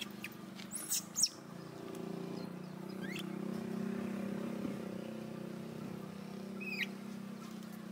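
Steady low engine hum that swells slightly and eases off, with a few short high chirping calls over it, one about three seconds in and one near the end.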